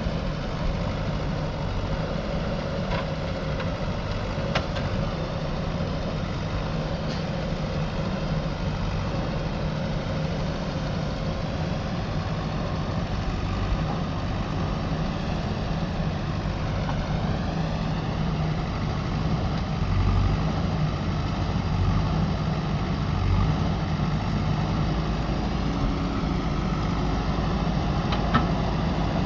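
JCB backhoe loader's diesel engine running steadily at work, a little louder about two-thirds of the way through, with a few faint knocks.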